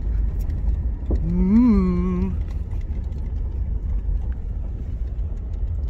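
A steady low rumble, with one short hummed voice sound that rises and then falls about a second in.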